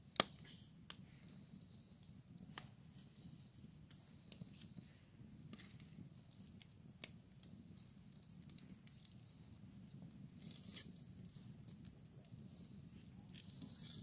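Wood campfire in a metal fire ring crackling, with scattered sharp pops from the burning wood. The loudest pop comes just after the start, with a clear single one about seven seconds in.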